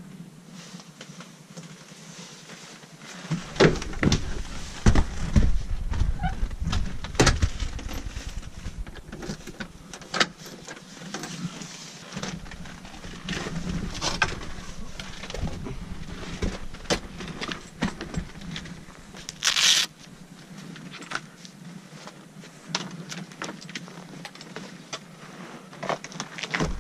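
Skis and poles being handled while someone walks out into snow: scattered clicks, knocks and rustles of gear. A heavy low rumble on the microphone runs from about three seconds in to eight seconds in, and there is a short hiss a little past the middle.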